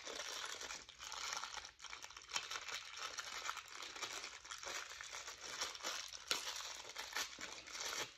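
Thin plastic wrapping crinkling in the hands as it is pulled off a small part, a continuous run of small crackles.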